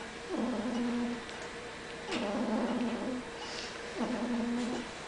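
Sleeping newborn Greater Swiss Mountain Dog puppy making a small low cry with its breathing, three times about two seconds apart, each dropping in pitch at the start and then holding a steady low note.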